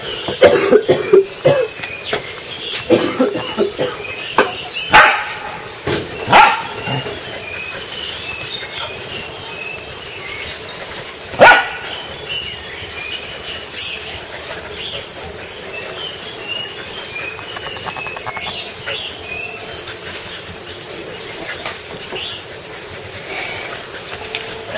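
Dog barking in play, a series of short loud barks in the first several seconds, then one more sharp bark or snap about eleven seconds in, after which it goes quieter.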